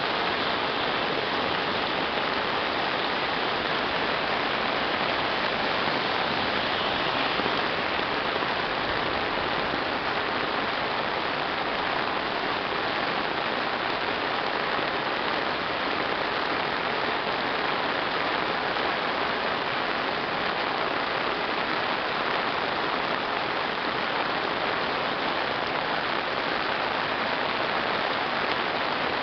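Heavy rain pouring down steadily: a dense, even hiss with no break.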